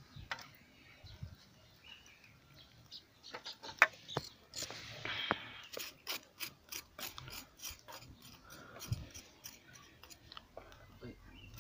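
Sharp clicks and light knocks as an animal head is handled on a wire grill over a charcoal stove, coming fast, about three or four a second, in the middle stretch, with a short hiss just before them.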